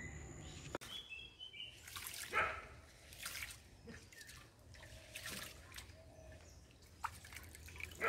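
Hands washing rice in a metal basin of water: the water sloshes and splashes in several short bursts, with dripping as handfuls of wet rice are lifted out.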